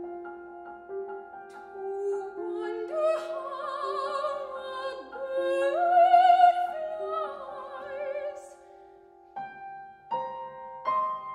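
A female voice sings an aria in operatic style over a grand piano. Soft repeated piano notes come first; the voice enters about three seconds in and swells to a loud held note with vibrato near the middle. It breaks off, and the piano plays chords alone near the end.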